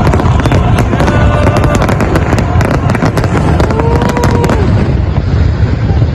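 Aerial fireworks going off: dense, rapid crackling over a constant low rumble, with a brief whistle-like tone about four seconds in. The crackling thins out near the end.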